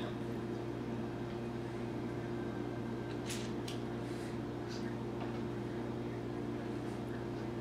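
A steady low hum throughout. About three seconds in come a few short, hissy sucking sounds from a toddler drawing on a plastic baby bottle that is probably empty.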